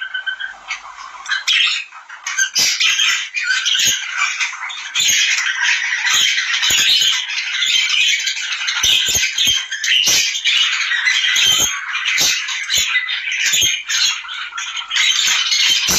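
A flock of small birds chattering and squawking without a break, many calls overlapping. Sharp clicks or taps are scattered irregularly among them.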